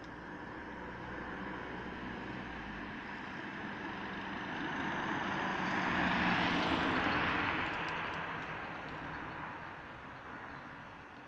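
A car driving past on the road: engine and tyre noise swells steadily, is loudest about six seconds in as it passes, then fades away.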